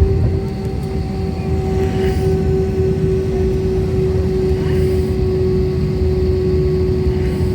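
Airliner jet engines running: a steady hum over a low rumble, with a fainter higher tone that fades out a few seconds in.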